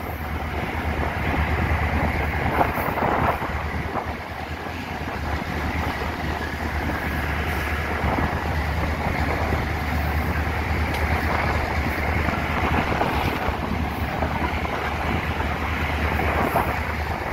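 EMD GL18B two-stroke diesel locomotive running along the line, its engine a steady low drone, with wheel-and-rail noise and wind rushing over the microphone.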